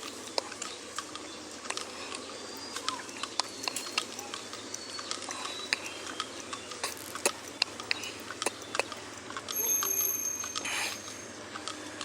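Scattered light clicks and taps in outdoor background noise, with a brief high ringing tone lasting about a second near the end.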